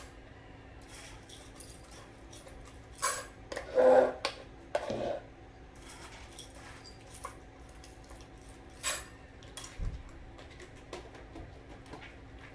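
Scattered light clinks and knocks of small household objects being handled, with a few louder clatters.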